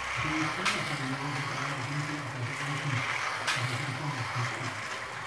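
Electric slot cars running on a Carrera track, their small motors buzzing with a pitch that rises and falls as they speed up and slow down. Two sharp clicks, about a second in and again near the end.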